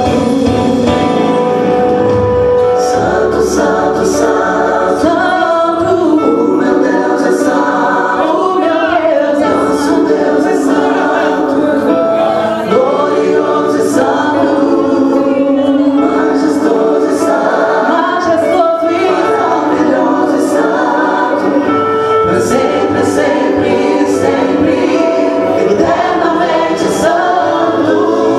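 A woman singing a gospel song into a microphone, heard through a PA, over musical accompaniment with a regular cymbal-like beat.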